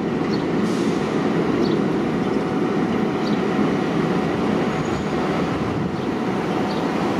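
R68A subway train running along the elevated steel track, a steady rumble of wheels on rail with faint light ticks every second or so.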